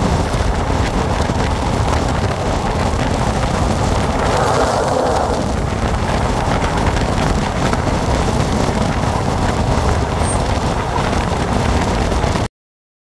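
Steady rush of wind over the microphone with the rumble of a moving passenger train's wheels on the rails, heard from an open carriage window. It swells about five seconds in and cuts off suddenly near the end.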